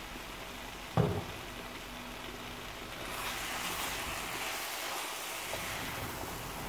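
Vegetables and chopped spinach sizzling in a frying pan, being stirred with a wooden spoon; the hiss grows louder and brighter from about three seconds in. A single short knock about a second in.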